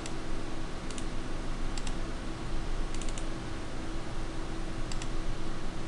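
Steady room and microphone hiss with a faint low hum, and a few faint, light clicks scattered about a second apart.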